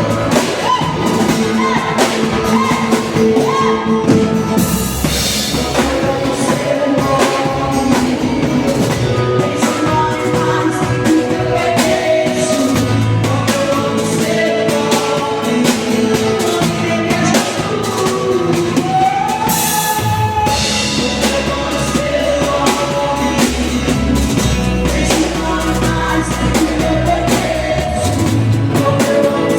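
Gospel worship song: a voice singing over a band with drum kit and guitar.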